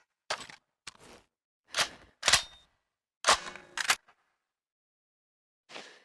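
Mechanical handling clicks and clacks of a Thompson submachine gun: about eight short, sharp clacks at irregular spacing, some in quick pairs, then a pause and one more near the end.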